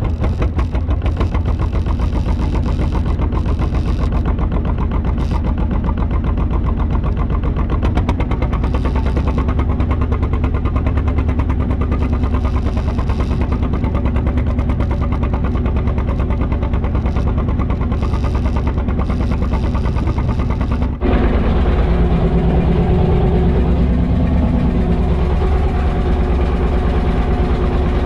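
Fishing boat's engine running steadily with a fast, even pulse. About three-quarters of the way through, the sound changes abruptly to a slightly different engine tone.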